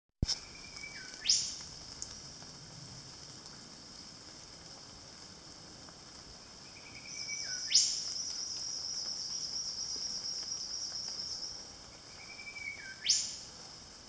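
Eastern whipbird calling three times. Each call is a held whistle that dips, then snaps up into a sharp whip-crack. A steady high insect drone joins about halfway through and stops shortly before the last call.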